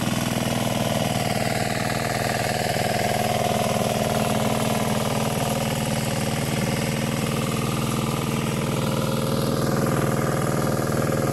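A small engine running steadily at an even pitch, with no change in speed.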